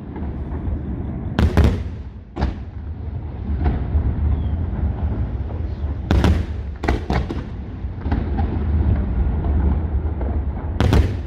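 Aerial fireworks shells bursting in a display. Sharp bangs come in clusters: a close pair about a second and a half in, another shortly after, a rapid group around six to seven seconds, and more near the end, over a continuous low rumble.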